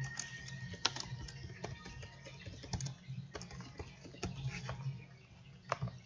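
Computer keyboard being typed on: irregular key clicks, a few a second, over a low steady hum.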